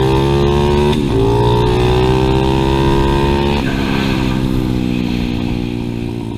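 Stock 140cc pit bike engine at race revs, heard from on board: the pitch climbs, dips sharply and picks up again about a second in, climbs again, then drops off about three and a half seconds in and falls away gradually as the throttle eases.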